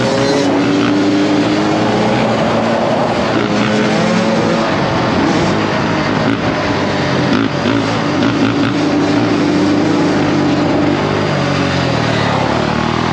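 Dirt bike engine running at changing revs while being ridden, its pitch holding steady for stretches and gliding up and down.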